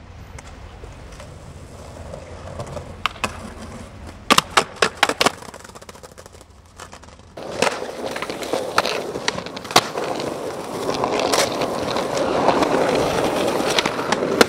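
Skateboard wheels rolling on pavement, with a quick run of sharp board clacks about four to five seconds in. From about halfway a louder roll with scattered clicks sets in and grows toward the end.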